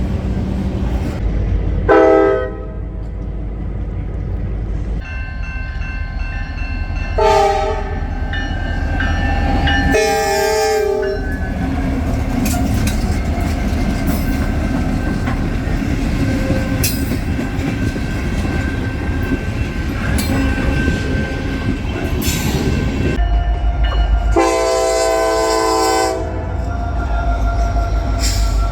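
Train horn blasts from passing locomotives over the rumble and clatter of trains on the rails: short blasts about two seconds in, near seven and ten seconds, and a longer blast near the end.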